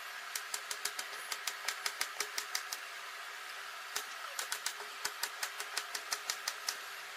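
Kitchen knife chopping a banana blossom on a plastic cutting board: quick, even taps about five a second, in two runs with a pause of over a second between them.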